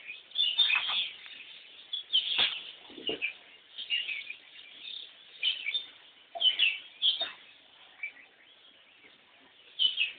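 Birds chirping in short, irregular calls, many about a second apart, some louder than others.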